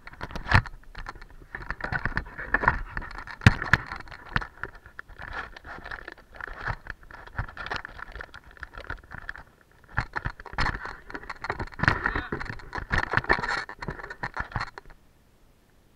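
Skis sliding and scraping over hard, cut-up snow on a downhill run, with frequent knocks and rattles. It eases off briefly about two-thirds of the way through and stops abruptly about a second before the end.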